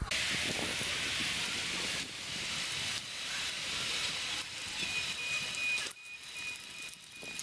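Steady hissing street noise on a small camera's microphone, changing abruptly at cuts about two, three and six seconds in.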